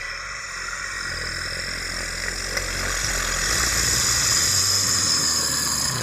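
A steady, hissing, noisy drone over a low hum, slowly growing louder and easing slightly near the end: a horror-style sound effect.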